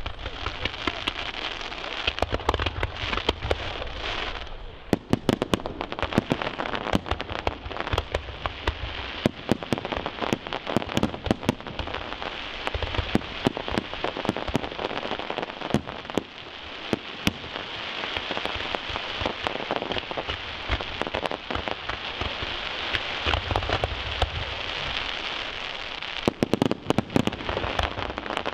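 Aerial fireworks display: a dense, continuous crackle like heavy rain, punctuated by many sharp bangs of bursting shells and low booms, with a thicker cluster of bangs near the end.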